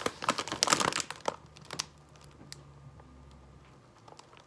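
Plastic potato chip bag crinkling as it is handled, busy for about the first second, then a few scattered crackles.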